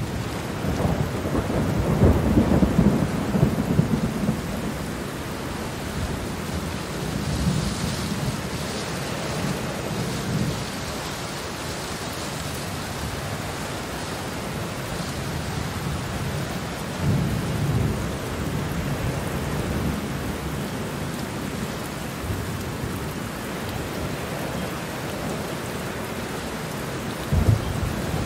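Steady rain falling with rolling thunder that rumbles low several times, loudest a few seconds in and swelling again near the end.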